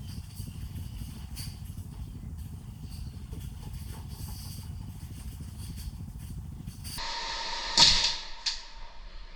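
A steady low rumble, like wind or handling noise on the microphone. It gives way abruptly to a sharp, loud crack near the end, followed by a couple of fainter clicks.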